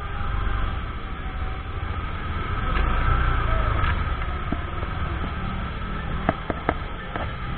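Motorcycle engine running at low speed with a steady low rumble as the bike rolls to a stop. Several sharp clicks sound near the end.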